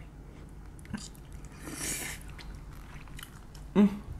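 Close-miked mouth sounds of eating saucy tteokbokki rice cakes and noodles: soft chewing clicks, a breathy slurp about two seconds in, and a short voiced "mm" near the end.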